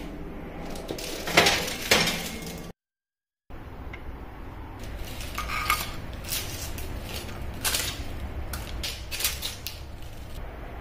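Kitchen clatter: a metal baking tray clanking as it is drawn out of an oven, with two loud clangs in the first two seconds, then after a short dead gap, a run of light clinks and knocks as toasted bread slices are lifted off the tray and set into a ceramic bowl.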